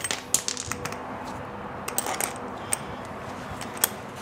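Light metallic clinks and clicks, several spread through, from a bolt, washer and spacer collar being worked as a wheel is fitted onto a portable generator's frame by hand.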